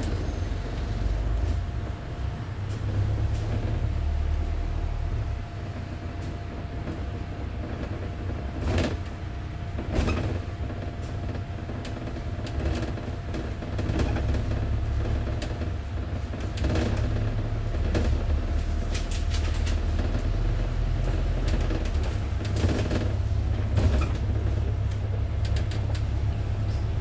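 Wright StreetDeck double-decker bus on the move, heard from the upper deck: a steady low engine drone with a faint steady whine. The body and fittings rattle and creak, with sharper knocks a little before 9 seconds and at 10 seconds in.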